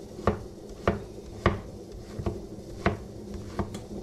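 A cleaver chopping pale green vegetable pieces on a plate: six sharp chops, a little over half a second apart.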